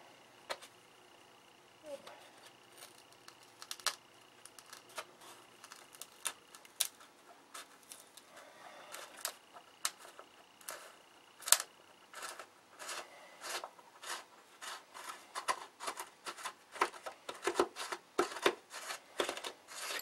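Irregular small clicks and crunches of a tool being worked by hand into a balsa wing spar to finish a hole that did not go all the way through, coming faster over the last few seconds.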